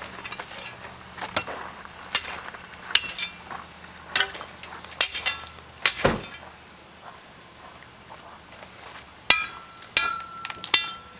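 Hand tools striking a drinking fountain as it is broken apart: irregular sharp blows, roughly one a second, with a pause about six seconds in. From about nine seconds the strikes give a clear metallic ring.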